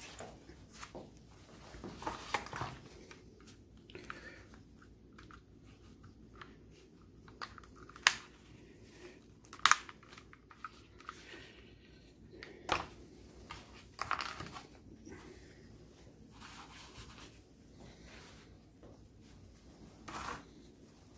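Plastic steering column combination switch with its airbag clock spring handled in gloved hands: scattered clicks and knocks of plastic parts, with rustling between, the sharpest clicks about eight and ten seconds in.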